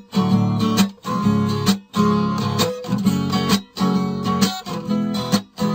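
Acoustic guitar strummed in a steady rhythm, with a short break in the sound about once a second.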